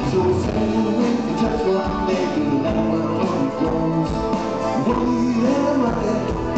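Progressive rock band playing live, heard from the audience: flute over electric guitar, bass guitar, drums and keyboards.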